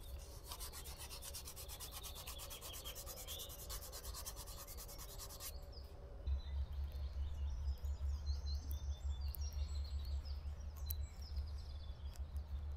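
Hands rubbing along a rubber bicycle inner tube while checking it for a puncture, with birds chirping. About halfway through, a low pulsing rumble sets in.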